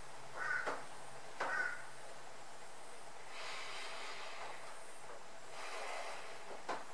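Soft breathing close to a lapel microphone: two slow breaths in the second half, over a faint steady hum. There are a couple of short clicks and chirp-like sounds in the first two seconds.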